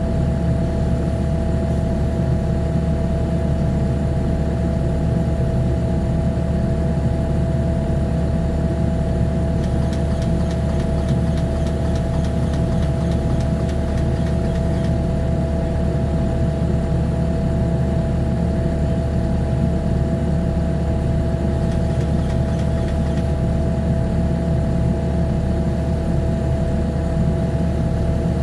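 Diesel engine of a Kubota SVL95 compact track loader running at a steady idle.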